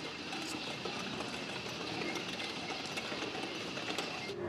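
Row of hand-spun prayer wheels turning on their spindles, a steady rattle of small clicks with a high, even squeal. The sound cuts off abruptly near the end.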